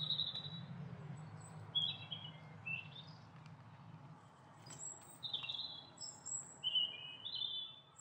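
Small garden songbirds chirping and twittering in a string of short, high calls, some sliding in pitch, over a low steady hum that fades about halfway through. A few faint sharp ticks fall among the calls.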